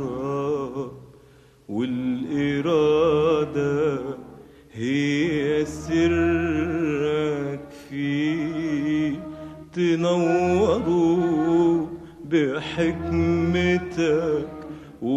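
Male voice singing an Arabic religious supplication (du'a) in long, ornamented phrases, each ending on a held, wavering note, with short breaths between phrases.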